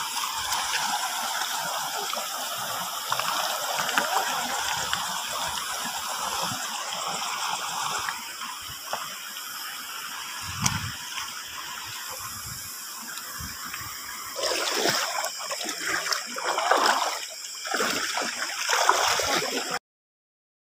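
Water sloshing and splashing around the legs of someone wading through shallow water. It grows louder and choppier in the last few seconds, then cuts off abruptly.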